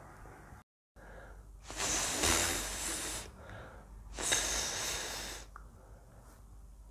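A man blowing the voiceless "th" sound of Castilian Spanish z (the theta sound), air hissed out between tongue and teeth twice, each about a second and a half long.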